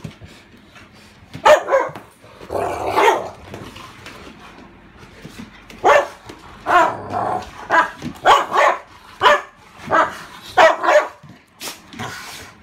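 Saint Bernard barking and growling in rough play with a golden retriever: about a dozen short calls, two in the first few seconds, then a quick run of them through the second half.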